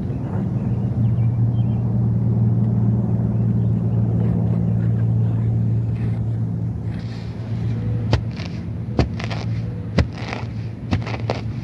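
A steady low motor hum that fades after about seven seconds. Then grass rustling and several sharp snaps as a gloved hand pulls dandelions close to the microphone.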